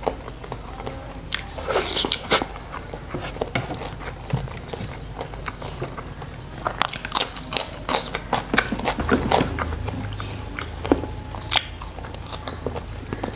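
Close-miked eating sounds: a man chewing and crunching mouthfuls of grilled fish, rice and raw cucumber, with wet smacking clicks. The crunchy bites come in clusters, the longest about seven to nine seconds in, just after he lifts a raw cucumber slice.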